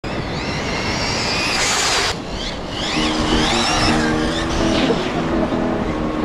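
High-pitched whine of an Arrma Typhon 6S BLX RC buggy's brushless motor, wavering up and down in pitch, cut off abruptly about two seconds in. From about three seconds in, background music with held low notes plays, with more short bursts of motor whine over it.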